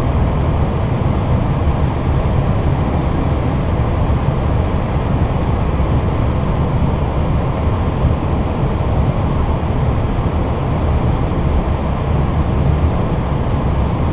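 Airbus A319 cockpit noise on final approach: a steady, low rushing of airflow and engines with no change in level.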